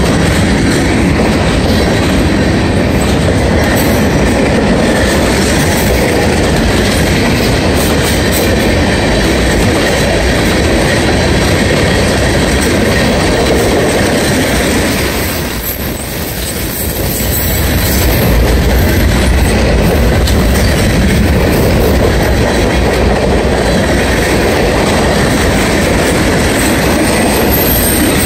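Freight cars of a mixed manifest train rolling past at close range: steady wheel-on-rail noise. It grows briefly quieter about halfway through, then comes back to full level.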